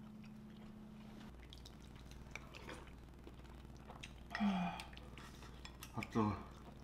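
A wooden spoon scooping stew from a ceramic bowl: light clinks and taps, with two louder short spoon-on-bowl sounds about halfway and near the end.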